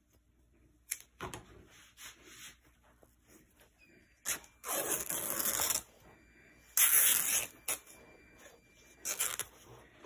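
Cloth rustling and rubbing as a fabric dress is handled and pressed down onto a textured mat, in several short bursts, the loudest about seven seconds in.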